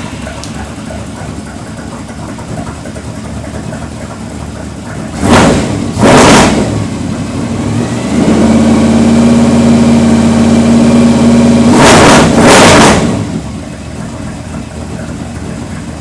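Engine exhaust through an AERO Exhaust TR251 straight-through resonator, loud. It idles, gets two quick revs about five seconds in, holds a steady higher rev for about four seconds, takes two more quick revs, then settles back to idle.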